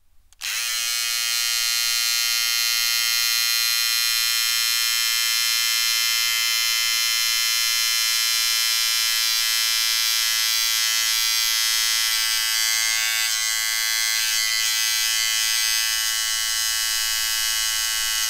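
Electric beard trimmer switched on about half a second in, its motor spinning up briefly and then running with a steady, even buzz.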